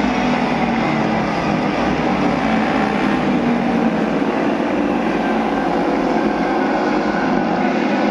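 Several auto race motorcycles running together at race speed, their engines blending into one loud, steady drone.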